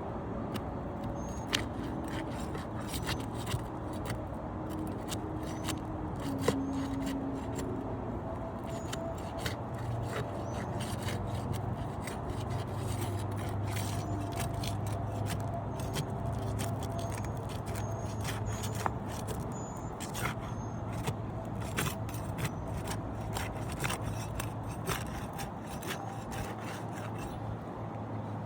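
Repeated scraping and sharp clicks as a roof shingle is worked loose and pried off, over a steady low hum.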